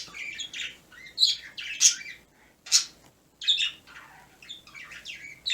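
Pet birds calling in the room: a string of short, high-pitched chirps and calls, a second or so apart.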